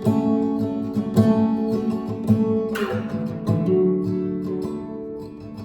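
Acoustic guitar strummed in steady repeated strokes, with a chord change a little past halfway.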